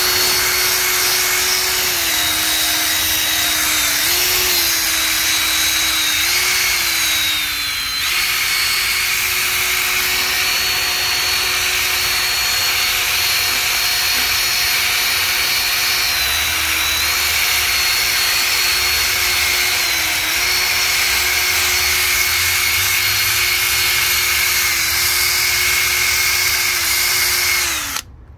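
A handheld power tool running continuously while it cleans a cylinder head. Its steady whine sags in pitch several times as it is pressed into the work, then cuts off just before the end.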